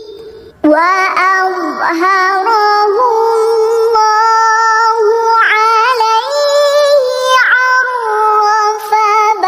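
A young girl reciting the Quran in the melodic murattal style, holding long, ornamented notes. A short pause for breath at the start.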